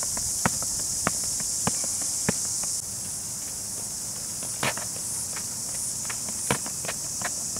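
Running shoes striking a rubberised athletics track as sharp ticks, evenly about every 0.6 s during a high-knee marching drill, then after about three seconds as slower, irregular walking steps. A steady high insect drone runs underneath.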